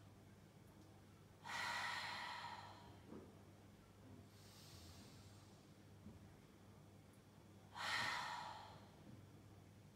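A woman taking deep yoga breaths: two loud exhales through the mouth as sighs, one about a second and a half in and one about eight seconds in, with a softer in-breath between them.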